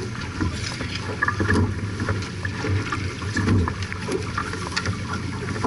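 Onboard sound of a J/24 sailboat under way: wind on the microphone and water rushing along the hull, with scattered short knocks and splashes.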